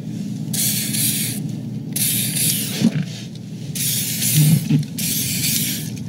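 WD-40 aerosol can spraying onto garage door hinges in four short hissing bursts, each about a second long.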